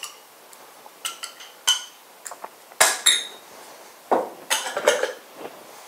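Metal spoon clinking and scraping against a mayonnaise jar and a white ceramic bowl as mayonnaise is scooped out and knocked off the spoon. Several sharp clinks with a short ring, the loudest just under three seconds in, then a softer clatter about four to five seconds in.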